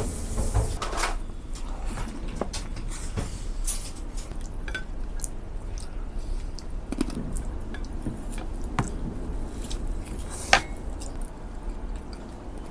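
Cutlery and tableware clinking during a meal: scattered light taps and clicks of utensils on plates and glass bowls, with one sharper clink about ten and a half seconds in.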